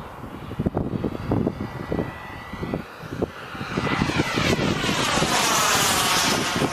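Turbine engine of a Turbinator model sport jet with a rising whine and hiss that grows loud as the jet sweeps past close by, peaking near the end. Wind buffets the microphone throughout.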